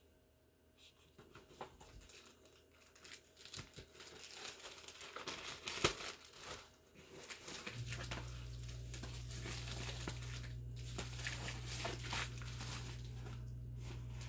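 Packaging crinkling, rustling and tearing as a mailer is opened by hand, the rustles getting busier partway through. A steady low hum starts about eight seconds in.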